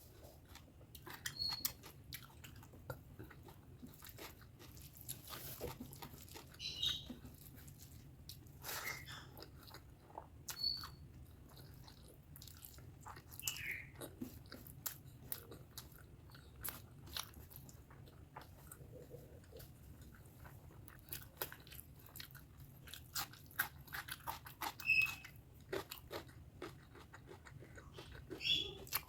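Close-up mouth sounds of a person eating pork fat curry with rice: wet chewing and smacking, many irregular short clicks, with a few brief squeaky mouth noises.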